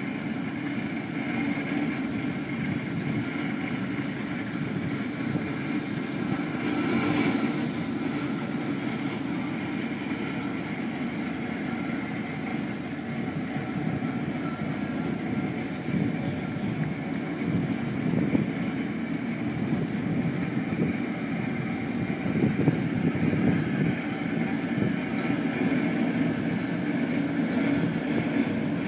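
Tugboat's diesel engine running steadily as it pushes a barge, with wind on the microphone.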